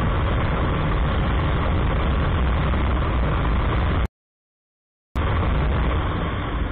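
Steady rush of wind and riding noise from a KTM Duke 250 at flat-out top speed, about 140 km/h. The sound cuts out completely for about a second midway, then returns.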